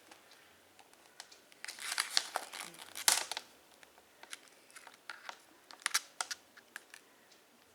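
Plastic wrapping crinkling and tearing as a sealed Blu-ray steelbook is opened, in two bursts about two and three seconds in, with scattered small clicks of handling.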